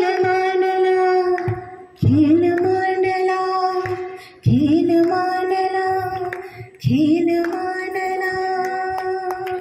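A woman singing into a handheld microphone: four long held notes, each sliding up into the same steady pitch, with short breaths between them.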